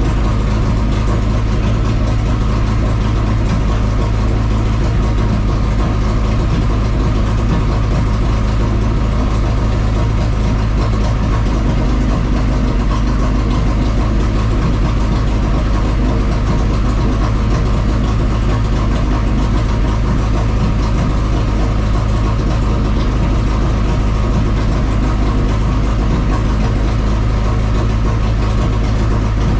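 Carbureted four-cylinder engine of a Chevrolet Caravan race car idling steadily at a constant speed, heard from inside the car.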